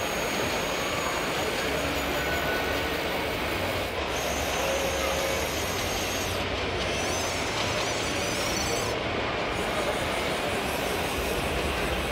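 Steady exhibition-hall din: a dense wash of crowd chatter mixed with model machinery noise, with no single sound standing out.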